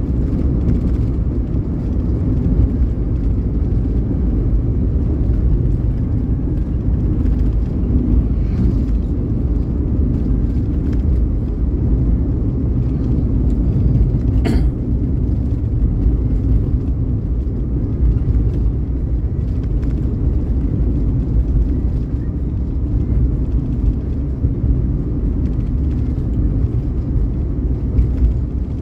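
Steady low rumble of a vehicle driving along a road, engine and tyre noise, with one short sharp click about halfway through.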